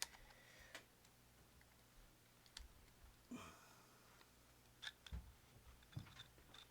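A sharp snip of cutters right at the start, then near silence with a low electrical hum and a few faint scattered clicks.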